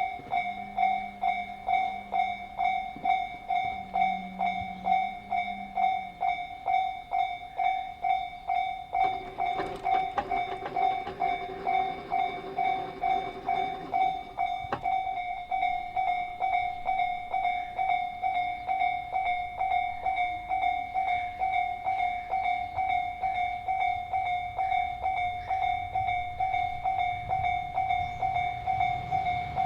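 Japanese level-crossing electronic warning bell ringing, a pitched ding repeating evenly at about two strikes a second. A low rumble builds near the end as a train approaches the crossing.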